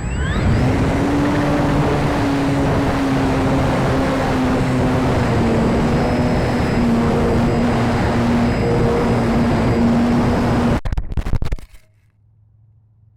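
Motor and propeller of a 3D-printed Extra 300 RC plane running at high throttle, heard from an onboard camera with heavy wind rush; the propeller tone rises at the start, then holds. About eleven seconds in comes a rapid cluster of crashing impacts, and the sound cuts off abruptly: the plane hitting the ground, with the camera thrown out through the propeller.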